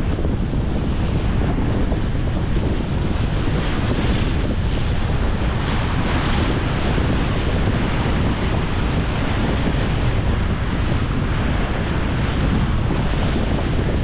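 Strong wind buffeting the microphone with a steady low rumble, over choppy water slapping and splashing against a concrete shoreline wall, the splashes swelling every second or two.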